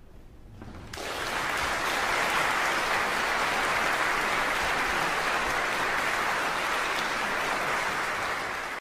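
Concert audience applauding after a live performance, the clapping starting about a second in and holding steady.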